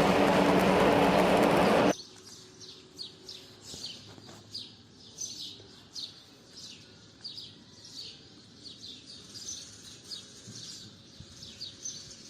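Stick-welding arc with a 7018 rod, crackling loudly with a steady hum, stops abruptly about two seconds in. Then small birds chirp over and over in short, high, falling notes.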